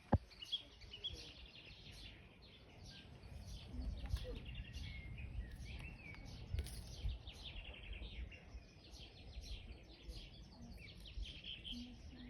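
Birds chirping and calling in many short, quick repeated notes, over a low rumble, with a sharp click at the very start.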